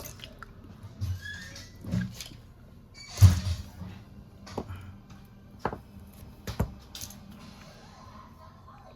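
Scattered small clicks and knocks of tools and phone parts being handled on a repair bench, with one louder thump about three seconds in.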